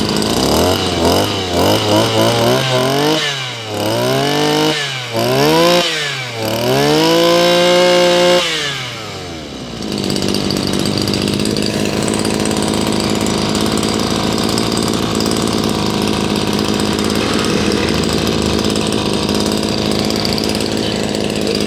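Maruyama MB2003 brushcutter engine head revved by hand in a run of quick blips, its pitch rising and falling, the last held at high speed for about two seconds before dropping back; it then idles steadily. It revs up and settles back to an even idle without stalling, a sign of a healthy engine.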